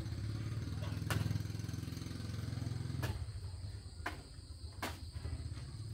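A small engine running steadily, with four sharp knocks over it.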